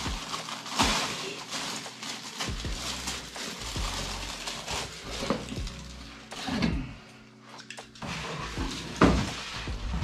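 Rustling and knocking of a delivered parcel being handled and unpacked, with a few louder knocks, over faint background music.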